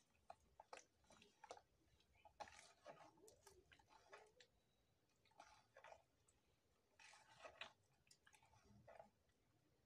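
Faint, irregular wet squelching and small clicks of hands squeezing and mixing thick banana pancake batter in a bowl.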